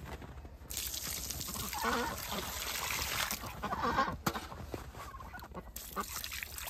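Domestic waterfowl calling in short honks a few times over a steady hiss.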